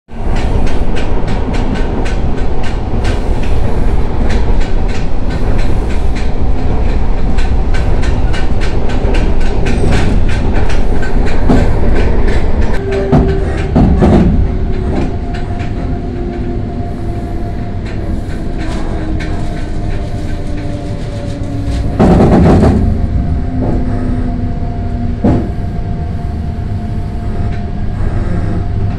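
Electric commuter train running, heard from inside the carriage: wheels clicking rapidly over the rails at first. About halfway through it grows quieter, and a motor whine falls slowly in pitch. A short loud rush of noise comes about two thirds of the way in.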